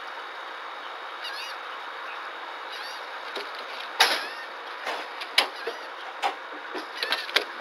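A small pet monkey moving about its wire-mesh cage: several sharp knocks and clicks from about four seconds in, the first the loudest, over a steady hiss, with a few faint high chirps in the first few seconds.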